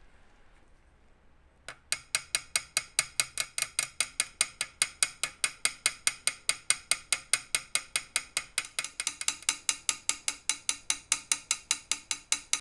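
Small dent hammer tapping lightly and quickly on a brass trombone slide tube supported on a steel mandrel, about five sharp metallic taps a second. The taps start about two seconds in and keep an even rhythm throughout. This is dent work, smoothing the tube round again.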